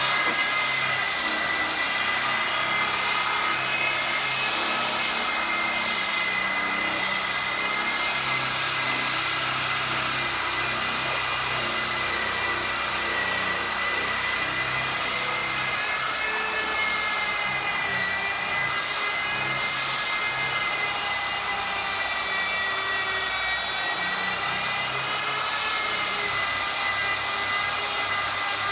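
Corded electric car polisher running steadily, its foam pad worked over a car's painted bonnet; the motor whine wavers slightly in pitch as the load changes.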